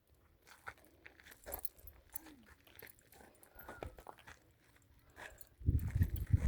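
Footsteps crunching on loose gravelly ground, in irregular scattered steps. Heavy low rumbling thumps come in near the end.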